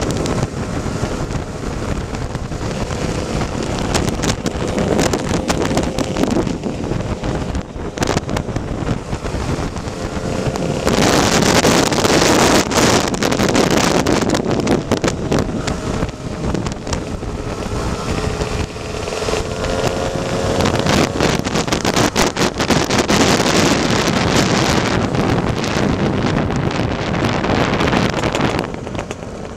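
Two-stroke Lambretta scooter engine running at road speed, mostly buried under heavy wind noise on the microphone, its faint tone rising and falling a little. The wind gets louder about eleven seconds in, and the level drops near the end as the scooter slows.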